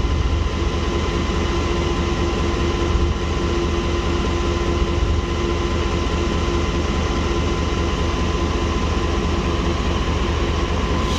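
Pakistan Railways GEU-40 diesel-electric locomotive idling at a standstill close by, a steady, even engine hum with a constant tone over it.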